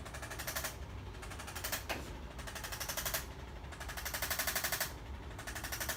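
Handheld percussion instrument rapping rapidly against the body in about five short bursts, each half a second to a second long.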